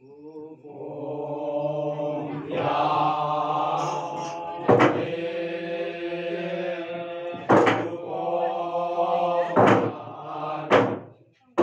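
A group of men chanting together in long held notes, broken by four loud, single strikes of wooden beaters on a hollow log drum at uneven gaps in the second half.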